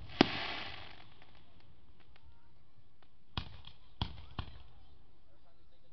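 Aerial fireworks shells going off: one sharp, loud bang about a quarter second in, trailing about a second of crackling hiss, then three smaller sharp bangs between about three and a half and four and a half seconds in.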